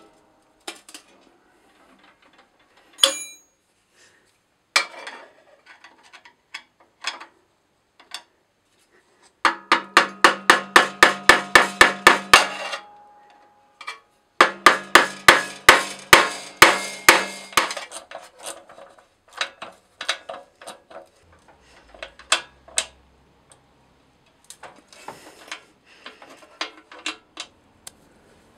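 Ratchet wrench clicking on a small engine's carburetor mounting bolts: two runs of quick, evenly spaced metal clicks, about seven a second, each lasting about three seconds. Scattered single clinks of the tool on metal come before and after.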